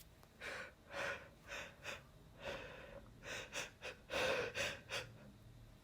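A man's quick gasping breaths, about ten in a row, as a sneeze builds up after he has snuffed chhinkni sneezing powder.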